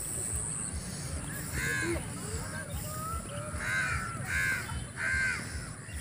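A crow cawing about four times in short calls, over a steady low rumble.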